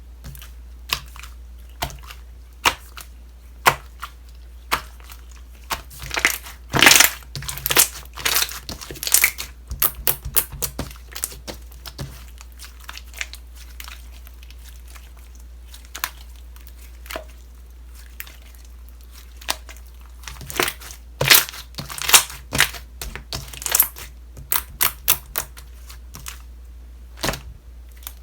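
Slime being squished and worked by hand, giving sharp crackling and popping clicks. The clicks come thickest in two busy stretches, one a few seconds in and one past the middle, over a steady low hum.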